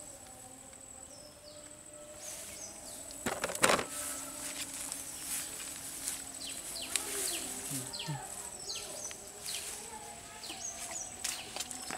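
Rural outdoor ambience: a steady high-pitched insect drone with many short, falling chirps over it. A single sharp knock about three and a half seconds in is the loudest sound.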